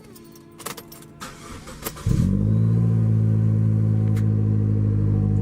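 A few light key clicks, then about two seconds in a 2015 Chevy Cruze's 1.4-litre turbocharged four-cylinder starts after a very short crank and settles into a steady, even idle. This is the first start after a leaking valve cover and PCV valve were replaced, and the rough idle is gone.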